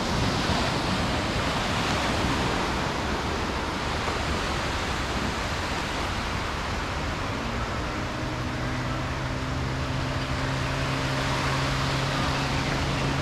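Sea waves breaking and washing up a sandy beach: a steady rush of surf. About halfway through, a steady low engine drone joins in.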